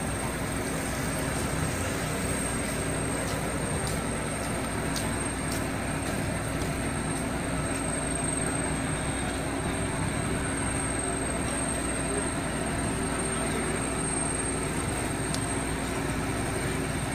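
Fire engine running at a fire scene: a steady engine drone with a constant low hum under a noisy hiss, with a few faint clicks.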